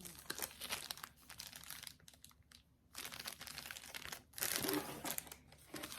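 Plastic packaging crinkling and rustling as the pieces of a diamond painting kit are handled, in stretches with a quieter gap about two seconds in.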